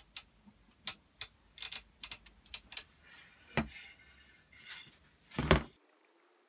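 Clicks and light knocks of an axe and tools being handled on a wooden workbench, with a louder knock about three and a half seconds in and the loudest, double knock about five and a half seconds in, as the axe is set down.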